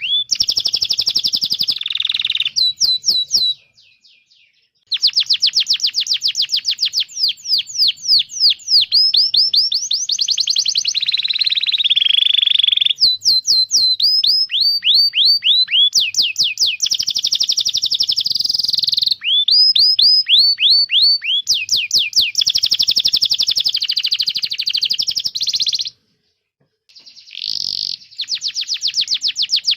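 Domestic canary singing: fast trills of rapid, high, falling chirps strung into long phrases, with short pauses about four seconds in and again near the end.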